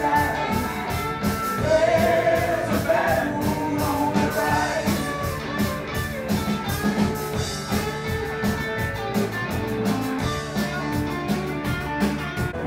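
Live rock band playing: electric guitar and a steady drum beat under lead singing.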